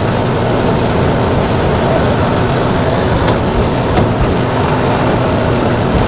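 Marinated pork sizzling in a hot pan: a loud, steady hiss of frying with a few small pops.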